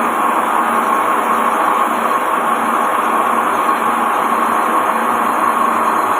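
Lathe running steadily while a radius cutting tool turns the curved groove of a dowel-machine pull roller.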